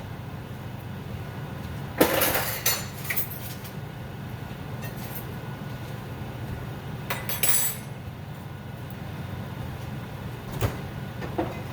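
Kitchen clatter: dishes and utensils knocking and clinking, a sharp knock with a second of rattling about two seconds in, another short clatter past the middle, and a single tap near the end, over a steady low hum.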